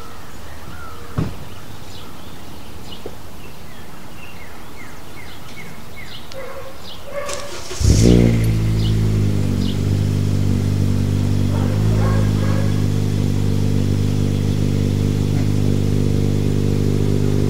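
Short high chirps over quiet outdoor background. About eight seconds in, an engine starts with a sudden burst and then runs steadily and loudly.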